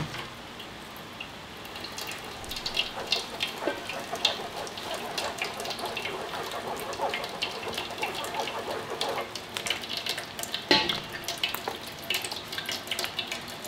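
Gloved fingers pressing and rubbing blended pear and onion pulp through a fine wire-mesh sieve, wet squelching and crackling as the juice runs through into a stainless steel bowl. A sharper knock about eleven seconds in.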